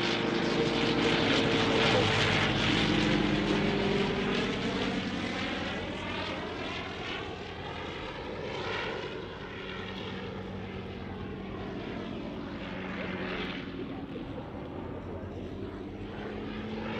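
Engine and propeller of a Fokker Dr.I triplane replica running as it flies past overhead, at a steady pitch. Loudest about two seconds in, then fading somewhat as it moves away.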